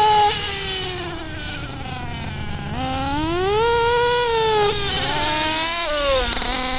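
Small two-stroke nitro engine of an RC buggy running at a high pitch, its pitch rising and falling several times as the throttle is opened and eased. This is the high-pitched sound of an engine tuned too lean.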